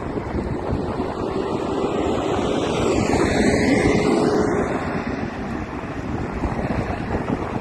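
Wind noise rushing over the microphone, with an engine-like hum that swells to its loudest and sweeps in pitch about three to four seconds in as something passes, then fades back into the wind.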